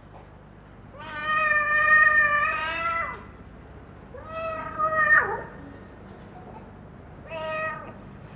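Domestic cat meowing three times, played from a recording: a long meow, a shorter one, and a brief one near the end.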